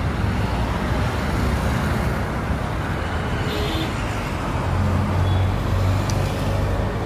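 Road traffic passing steadily on a multi-lane road, with one vehicle's engine rumble swelling louder about five seconds in.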